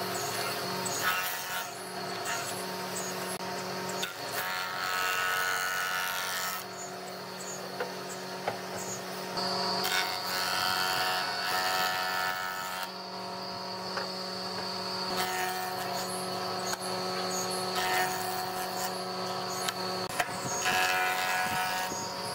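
Jointer running with its cutterhead shaving a charred wooden beam in several passes: a steady machine hum, with the cutting noise swelling each time the wood is pushed over the blades and easing between passes.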